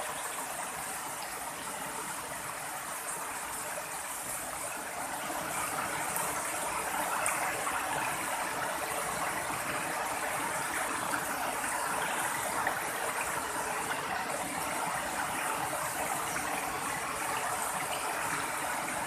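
Steady rush of running water, as from a forest stream or small waterfall.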